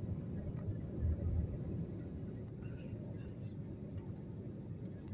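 Jet airliner cabin noise during the climb just after takeoff: a steady low rumble of the engines and airflow, heard from inside the cabin.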